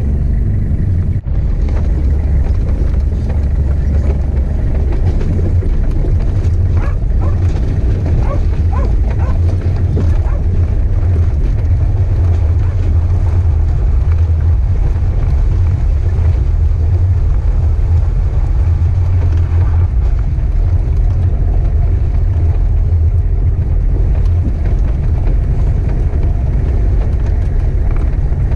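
4x4's engine and tyres rumbling steadily as it drives over river gravel and shallow water, picked up close by a camera mounted on the bonnet.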